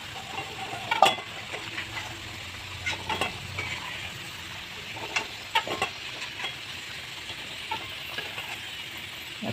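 Hot oil sizzling steadily in a pan, with a few sharp clinks and scrapes of a metal spatula as fried potato pieces are lifted out of the oil.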